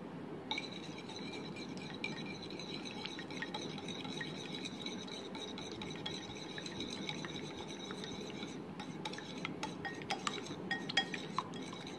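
Egg-and-milk batter being stirred in a glazed ceramic bowl, the utensil clinking lightly against the bowl, with the clinks coming thick and fast in the last few seconds. A faint steady high whine sits underneath and stops about three-quarters of the way through.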